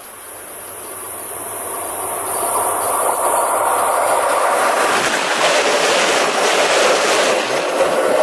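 A locomotive-hauled train approaching head-on, growing steadily louder over the first few seconds, then passing close by with loud rushing wheel and rail noise.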